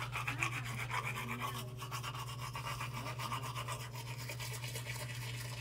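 Manual toothbrush scrubbing teeth with rapid back-and-forth strokes.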